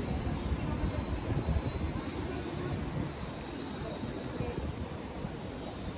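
Busy city street ambience: a steady low rumble of traffic and crowd. A faint high-pitched sound pulses on and off, the pulses less than a second apart.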